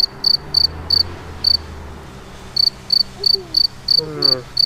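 Cricket chirps, the comedic 'crickets' effect for an awkward empty silence: short high single chirps at about three a second, with a pause of about a second partway through.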